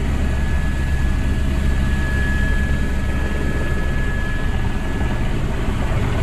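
Helicopter running on the pad, heard from inside the cockpit: a steady, loud low rotor and engine rumble, with a thin high steady whine over it that fades out about five seconds in.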